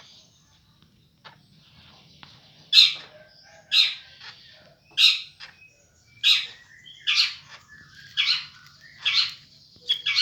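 White-rumped shama (murai batu) giving a series of about eight short, harsh, rasping 'cekrek' calls, roughly one a second, starting a couple of seconds in. Keepers take this hoarse, cough-like call as a sign of a respiratory infection.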